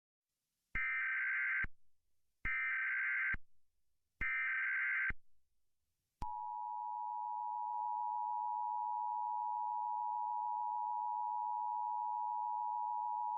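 Emergency Alert System tones: three short bursts of SAME header data, each just under a second, followed about six seconds in by the steady, unbroken two-tone attention signal that announces an emergency alert.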